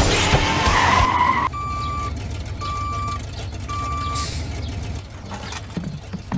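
Loud vehicle rush with skidding noise that cuts off about a second and a half in. Then the Planters Nutmobile's reversing alarm gives three evenly spaced beeps, about one a second, followed by a few light knocks.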